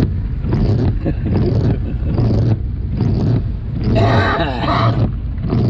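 Indistinct voice inside a moving car, with steady low engine and road noise underneath.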